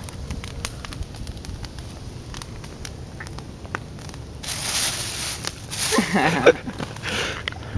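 Campfire crackling and popping, with many small sharp snaps. In the second half come louder bursts of rustling, with a short wavering voice-like sound among them.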